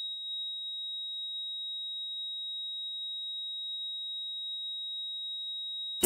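A single steady high-pitched electronic tone, held level throughout, cutting off suddenly at the very end as music comes in.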